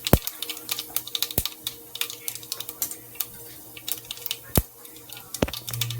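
Mustard seeds, cumin and urad dal crackling in hot oil for a tempering: dense, irregular sharp pops with a few louder ones, over a steady low hum.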